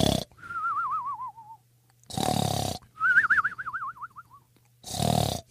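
Cartoon snoring sound effect: a short rasping snore on the in-breath, then a warbling whistle that falls in pitch on the out-breath, repeating about every two and a half seconds.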